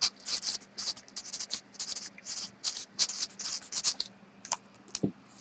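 Pen scratching on paper in a quick run of short, irregular strokes, with a couple of light clicks near the end.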